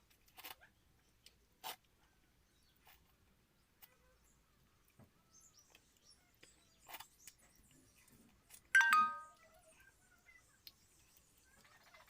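Quiet eating sounds: a few soft clicks, and about nine seconds in one brief ringing clink with a short ring.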